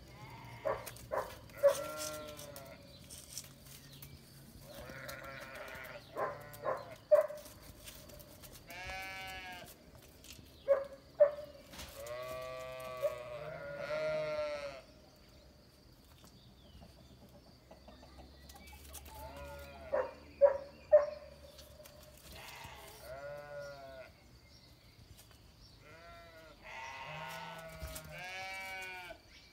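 Repeated bleating from sheep and a goat, long wavering calls in bunches. Sharp knocks are the loudest sounds, a few times, as the two sheep butt heads.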